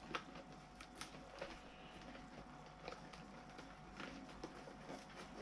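Faint rustling and scattered light clicks of hands working inside a motorcycle helmet, fitting and plugging in intercom cables.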